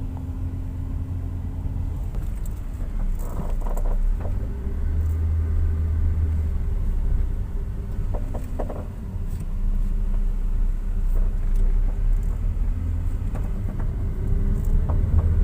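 Steady low rumble of road and engine noise inside a moving car's cabin, with a faint hum above it.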